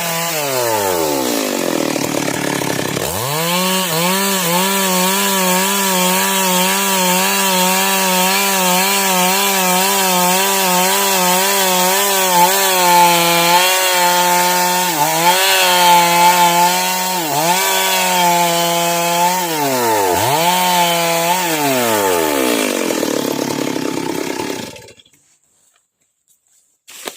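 Chainsaw ripping a log lengthwise at high throttle, its pitch sagging several times as the chain bogs in the cut and then climbing back. Near the end the pitch falls away and the saw goes quiet.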